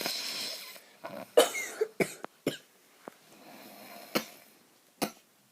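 A sleeping person snoring: one long snore at the start and a softer one about four seconds in, with several short, sharp bursts like coughs or snorts in between.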